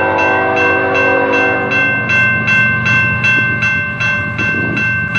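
A railroad crossing bell ringing steadily, about three strokes a second. Over it, an approaching CN freight locomotive sounds its horn for the first two seconds or so, and then its diesel engine is heard running as it draws closer.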